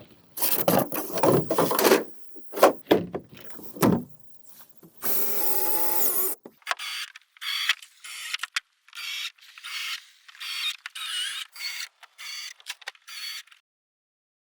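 Handwork sounds: a few knocks and clatters, a short steady rasp, then a run of rhythmic scraping strokes, about two a second, that stop shortly before the end.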